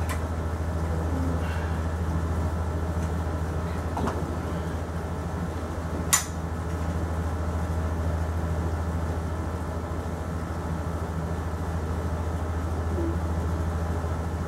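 Steady low hum of room background noise, with a fainter knock about four seconds in and one sharp click about six seconds in as the scoped air rifle is handled and shouldered.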